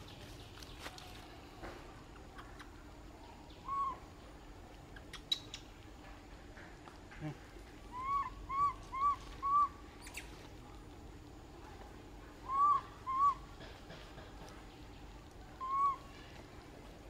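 Baby macaque giving short, high, rising-and-falling coo calls: a single call, then a quick run of four, then two more, then one near the end. These are an infant's distress cries for its mother.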